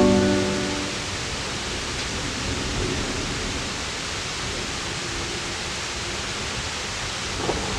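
Steady rain falling, an even hiss with no tune. A low rumble of thunder starts near the end.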